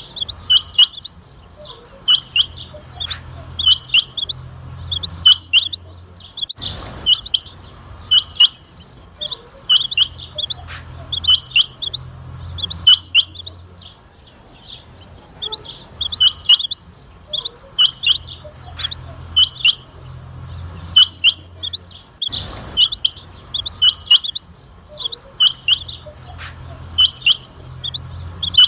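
Rain quail calling: short, sharp, high-pitched notes in quick clusters, repeated over and over. Two clicks break in, about a quarter of the way in and again about three-quarters of the way in.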